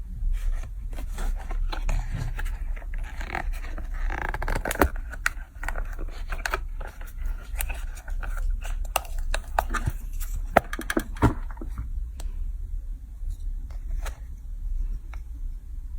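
Small objects being handled and worked in a small room: repeated scraping and sharp clicks, busiest in the first twelve seconds and sparser near the end, over a steady low hum.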